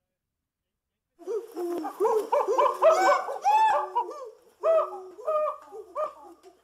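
Several birds calling, with a dense run of short whistled notes that rise and fall and overlap one another. The calls start about a second in and thin out toward the end.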